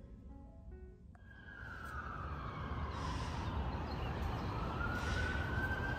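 Emergency vehicle siren wailing, with one slow fall in pitch and a rise back up, over a steady outdoor background hum. The last notes of soft background music fade out in the first second.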